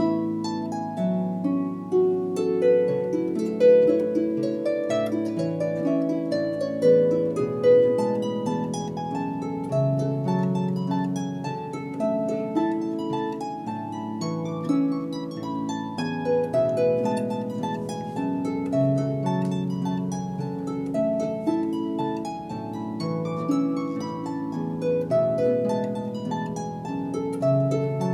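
Instrumental background music played on a harp: a steady flow of plucked, ringing notes in flowing patterns.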